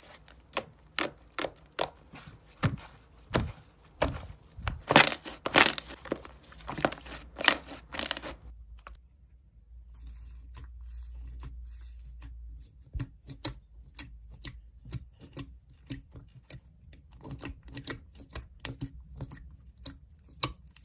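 Slime being worked by hand, making a run of irregular crisp pops and crackles. They are dense and loud for the first eight seconds, thin out for a few seconds, then go on more softly.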